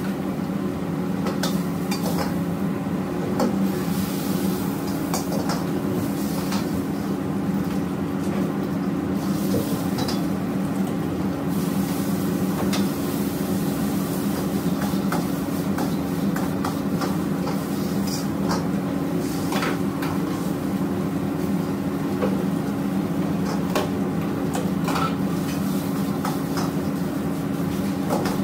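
Metal wok ladle clanking and scraping irregularly against a steel wok as food is stir-fried, over the steady, even hum and roar of a commercial gas wok range.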